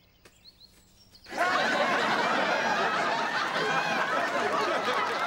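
Sitcom studio-audience laughter: a whole crowd bursts out laughing about a second in and keeps laughing steadily. Before that there is only near quiet with a few faint clicks.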